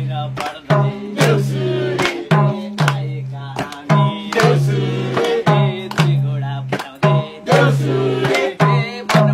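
Madal drum played in a steady beat, its deep strokes ringing, under group singing of a Deusi Bhailo song with hand clapping.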